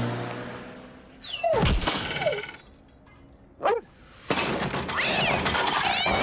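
Cartoon slapstick sound effects for a cat catapulted off a plank. A loud strike comes with short falling tones, then a sharp hit, then a long crashing, splashing racket with a cat yowling as it lands in a rubbish skip.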